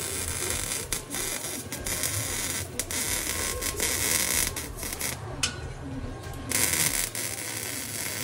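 MIG welder arc crackling and sizzling while welding exhaust pipe, in a run of short welds broken by brief pauses, the longest a bit past halfway.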